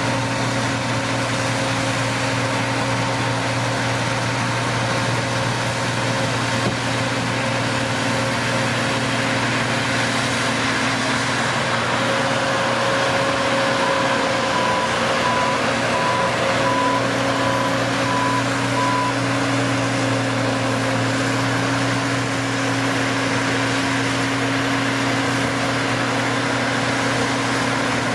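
The engine of a large farm machine running steadily, with a constant hum. Midway through, an alarm beeps about two times a second for several seconds, then stops.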